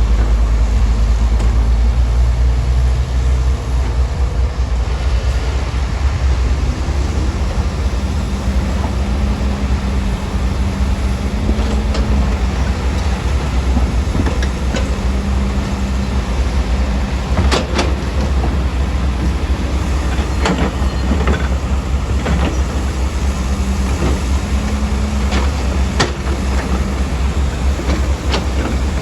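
Heavy diesel earthmoving machinery running: a deep, steady engine rumble, with several sharp metal clanks in the second half.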